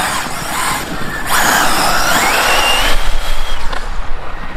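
ZD Racing EX07 electric RC supercar driving at speed, its motor whining over a hiss of tyre and wind noise; the whine climbs in pitch a little after a second in as the car accelerates, holds high, then drops away near the end.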